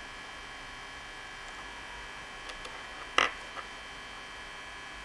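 Steady electrical hum with a high whine, broken by a few light clicks and one sharp, louder click about three seconds in: metal alligator test clips being handled and clipped onto LED dome light wires.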